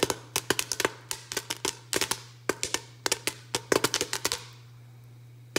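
White popcorn kernels popping in oil in a stovetop pot: sharp, irregular pops, several a second, that stop about four seconds in.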